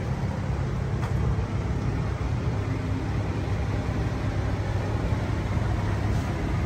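A steady, low-pitched hum of background machinery with an even rush over it, holding at one level without changes.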